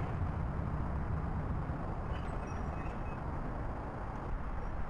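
Steady low rumble of diesel engines, from the excavator working on the demolition and road traffic, with no distinct crashes of falling debris.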